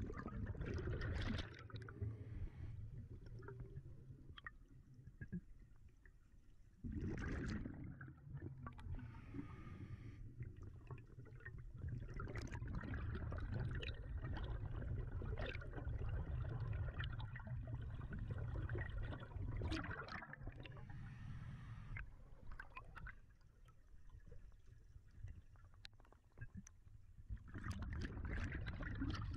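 Underwater water noise around a diver's camera, gurgling and rushing, swelling and fading in long stretches with quieter gaps.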